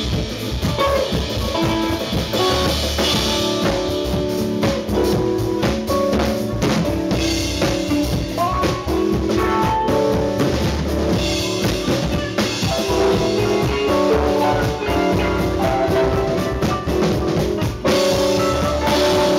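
Live band of electric bass, mandolin and drum kit playing an instrumental tune. The drums drop out near the end, leaving held bass and mandolin notes.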